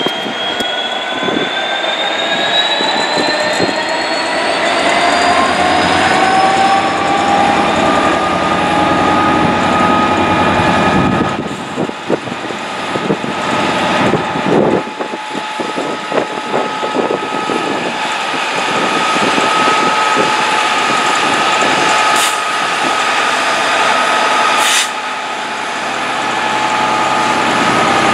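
Class 66 diesel locomotive's EMD two-stroke V12 engine working hard as it hauls a container train, its pitch rising over the first several seconds and then holding steady with a whine. Wagons clatter past in the middle, and there are two sharp cracks near the end.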